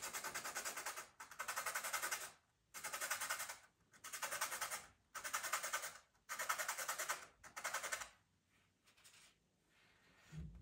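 Black pastel pencil being sharpened: about seven rasping, scraping passes of roughly a second each with short pauses between them, stopping after about eight seconds.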